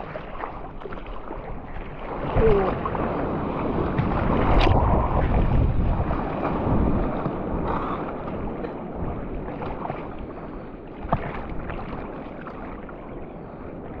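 Ocean surf and rushing water with wind buffeting the microphone, swelling louder for a few seconds from about two seconds in. There is a single sharp click near the middle.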